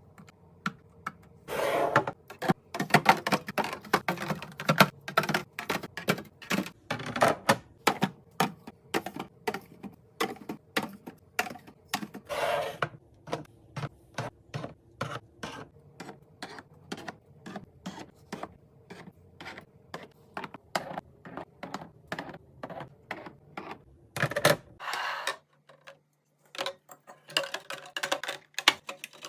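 Rapid, irregular clicking and clacking of containers and packaged items being handled and set down while restocking a fridge, with a few short rustling bursts.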